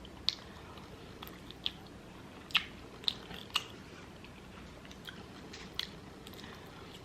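A person eating crunchy food close to the microphone: chewing, with about half a dozen sharp crunches scattered through, the loudest cluster around the middle.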